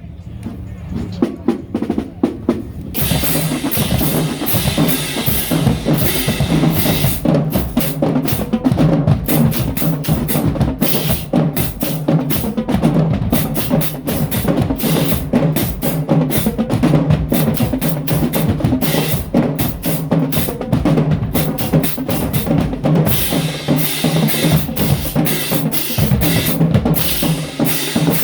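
Marching band drumline playing a fast, driving cadence on snare and bass drums. It starts softly and comes in at full volume about three seconds in.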